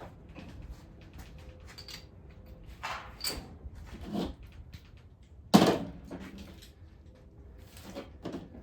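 Hand tools knocking and clacking against an engine being stripped on a stand, a few separate knocks with one loud thunk about five and a half seconds in.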